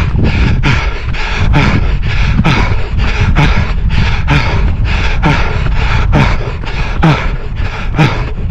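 A runner's footsteps striking the path at a steady pace, about two a second, with hard breathing between them, over a steady low rumble.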